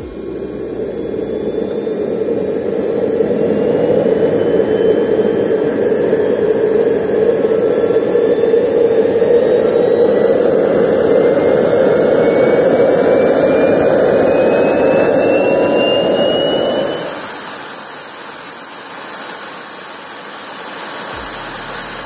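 Small hobby turbojet engine of about 50 pounds of thrust running on a test stand: a steady exhaust roar under a high turbine whine that climbs in pitch throughout as the engine spools up. The roar drops away about three-quarters of the way through while the whine keeps rising.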